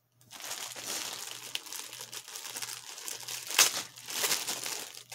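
Packaging crinkling and rustling as it is handled and opened, with a sharper crackle about three and a half seconds in.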